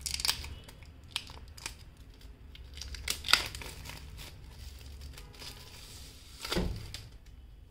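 Clear plastic shrink wrap being torn off an Apple Pencil box and crumpled in the hands: irregular crinkling and tearing crackles, the loudest a little past three seconds in, with a duller knock of the box being handled about six and a half seconds in.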